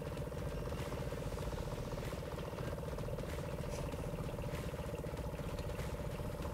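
Boat's outboard motor running steadily at idle, a low, evenly pulsing engine hum.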